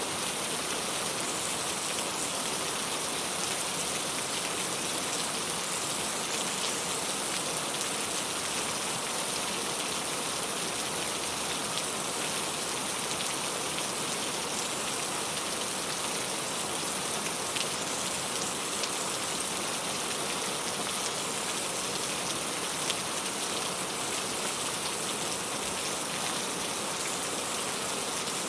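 Steady rain falling, an even hiss of many drops with faint scattered drop ticks.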